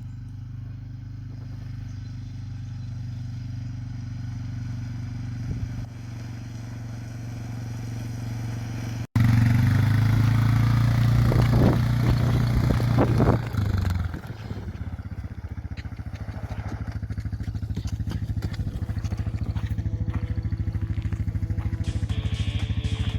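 Suzuki motorcycle engine running steadily. About nine seconds in, the sound cuts abruptly to a louder, closer take with a brief rev, then settles back to a steady drone.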